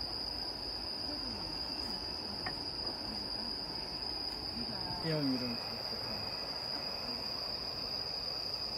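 Crickets trilling in a steady, unbroken high-pitched chorus, with a brief faint voice-like sound about five seconds in.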